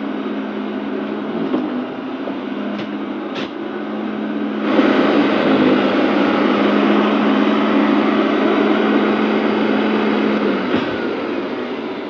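Upright vacuum cleaner running: a steady motor hum with rushing air, getting louder about a third of the way in and cutting off suddenly near the end as it is switched off.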